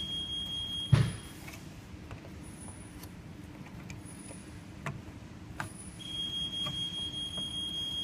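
An electronic buzzer sounds a steady high tone that cuts off with a knock about a second in and starts again about six seconds in. Light clicks and knocks of handling metal parts fall in between.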